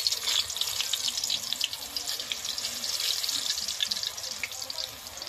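Urad dal fritters (ras bara) frying in hot oil in a kadai over a low flame: a dense sizzle with many small crackles, easing a little near the end.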